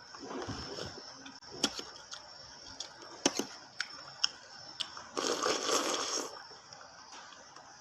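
Close-miked eating sounds: food being chewed, with several sharp clicks and a louder crunchy stretch lasting about a second, about five seconds in.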